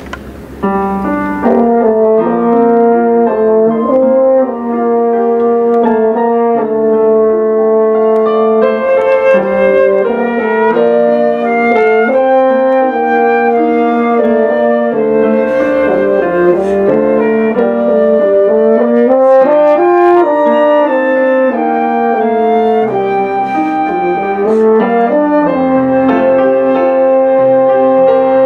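Live instrumental trio of French horn, flute and upright piano playing a melodic piece, the horn carrying long held notes over the piano. The music starts about a second in.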